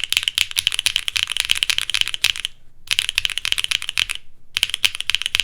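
Fast typing on a Mode Sixtyfive mechanical keyboard with lubed linear switches, with clacky bottom-outs. It comes in three runs of rapid keystrokes with brief pauses between them.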